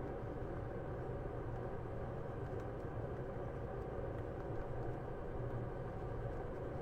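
Steady electric fan hum with a constant rush of air, from equipment running on the repair bench.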